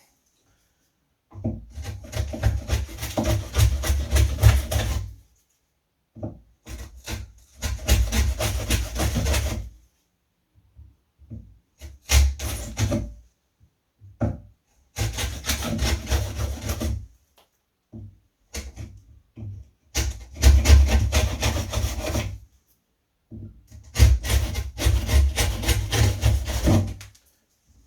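Hand tool scraped rapidly back and forth on wood, taking more wood out of the latch hole in a door's edge so the latch will fit. It comes in repeated bouts of a few seconds with short pauses between.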